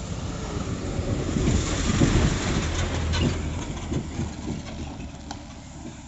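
A vehicle passing by: a rumble with a low engine hum that swells to its loudest about two seconds in and fades away by about five seconds, with a few knocks as it goes.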